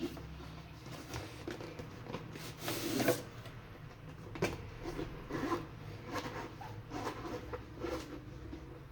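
Handling and opening a parcel: intermittent rustling and scraping of packaging with small clicks, the loudest a short tearing rasp about three seconds in.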